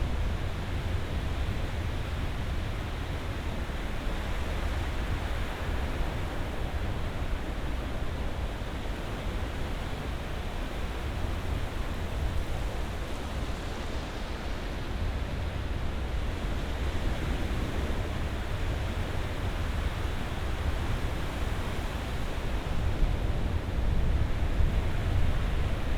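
Ocean surf: a steady rush of waves with a heavy low rumble, swelling a little near the end.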